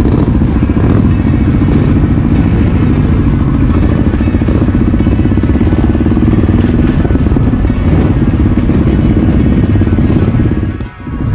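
Motorcycle engines running steadily as the bikes ride off together. A brief dip about a second before the end.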